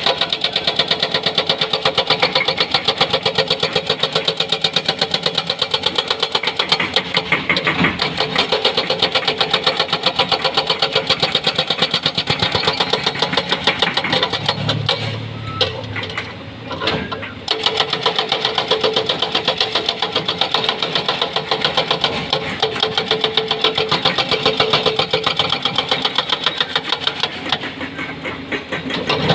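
Hydraulic breaker on a Doosan excavator hammering rock in a rapid, even rhythm over the engine. It stops for about two seconds around the middle, where the engine is heard alone, then resumes, with a shorter let-up near the end.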